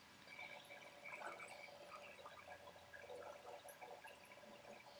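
Jaggery syrup boiling in a pan, heard faintly as soft bubbling with scattered small pops.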